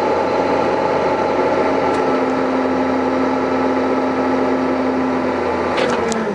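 Diesel engine of a Case 325 articulated haul truck running steadily while the loaded truck is driven, heard from inside the cab. Near the end the engine note falls as the revs drop, with a couple of sharp clicks.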